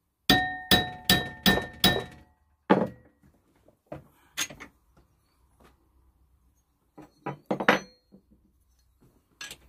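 Hammer striking a steel trampoline bracket clamped in a bench vice to straighten it: five quick ringing blows about half a second apart, then a few single knocks. Lighter metal clinks follow near the end as the bracket is handled in the vice.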